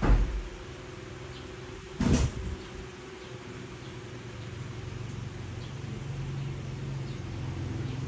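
Two dull thumps about two seconds apart, like a door or cupboard knocking shut, over a steady low hum.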